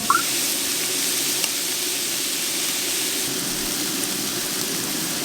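Steady rushing hiss like running or pouring water, which starts abruptly, with a brief high chirp just after it begins.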